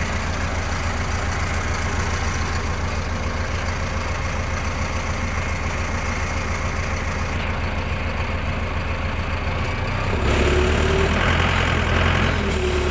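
Mahindra Arjun Novo 605 tractor's four-cylinder diesel engine running steadily with a pulsing low rumble, heard from the driver's seat; the engine grows a little louder about ten seconds in.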